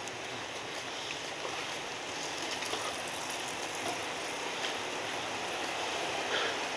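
Steady city street ambience: an even wash of distant road traffic, with a few faint ticks and footsteps.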